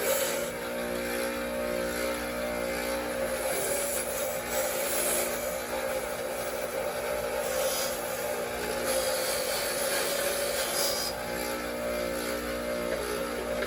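Power wire wheel running steadily, scrubbing corrosion off the aluminum base of a Porsche 915 gearbox shifter: a steady motor hum with a scratchy hiss that swells and eases as the part is pressed to the wheel.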